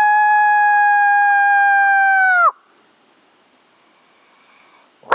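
Coyote lone howl blown on a diaphragm mouth call: one long, steady note that drops off sharply about two and a half seconds in. A pause follows with a faint click, then a second howl breaks in with a rising waver at the very end.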